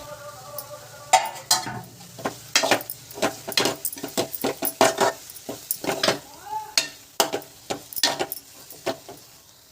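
A spoon stirring an egg, garlic and chilli fry in a pan, scraping and knocking against the pan in quick, irregular strokes, with faint sizzling underneath.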